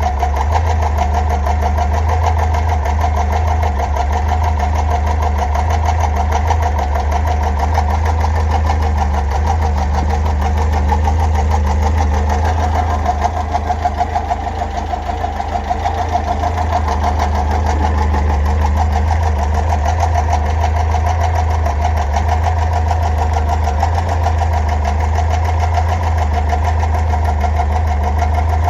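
Car engine idling with the fan belt removed, making a strange metallic noise: a fast, even ticking over the steady engine hum. It dips slightly in loudness about halfway through.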